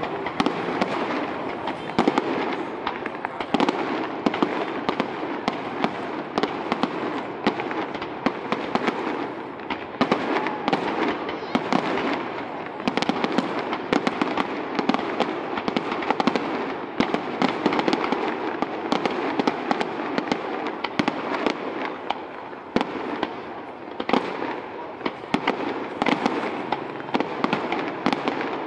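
Fireworks display: aerial shells bursting one after another, a dense, continuous run of bangs and crackles with no break.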